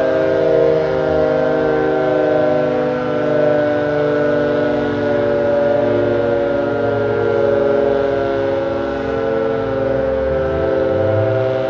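Fire station siren sounding a steady, held tone during a station-call test.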